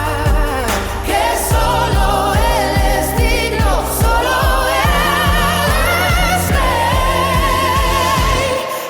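Modern Christian worship song: a sung vocal holding long, wavering notes over a steady drum beat and bass, with the drums and bass dropping out near the end.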